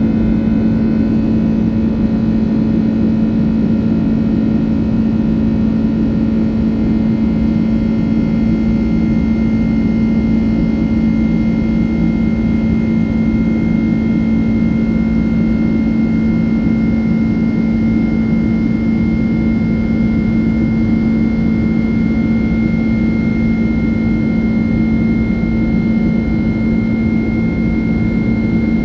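Airplane cabin noise in flight: a steady rushing drone of engine and air noise with a constant low hum and a faint thin high whine, unchanging throughout.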